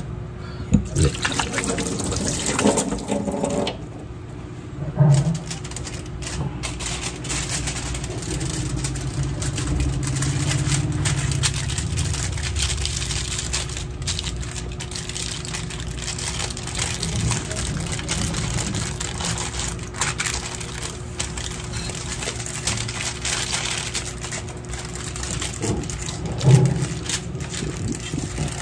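Aluminium foil crinkling and rustling as it is folded by hand around a whole fish, with small irregular crackles throughout.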